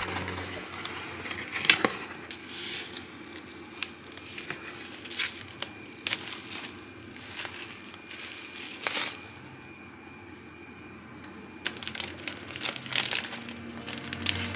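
Cardboard mailer box being opened and a paperback unwrapped from bubble wrap and a plastic sleeve: plastic and cardboard crinkling and rustling in irregular handling bursts, with a quieter spell about two-thirds of the way through.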